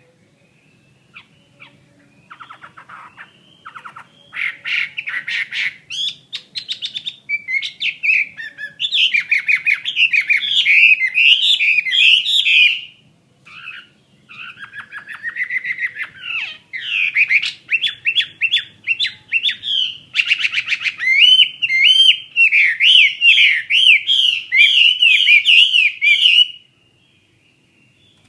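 Chinese hwamei (họa mi) singing loudly in rapid, varied whistled and trilled phrases. There is a short break about halfway through, and the song stops shortly before the end.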